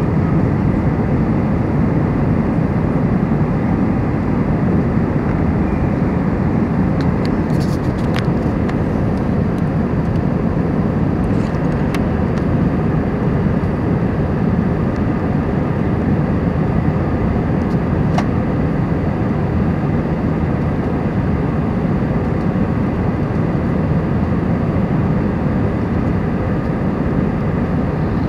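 Airbus A320 cabin noise during climb-out after takeoff: the steady rumble of the jet engines and rushing air heard from inside the cabin, with a few faint clicks in the middle.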